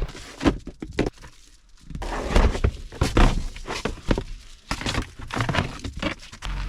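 A run of irregular knocks, thunks and clatters, a dozen or more spread over several seconds, like things being handled and set down.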